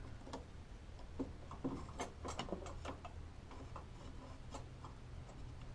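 Faint, scattered light clicks and taps of a thin steel horn bracket and horn being handled and test-fitted against engine-bay parts, over a low steady hum.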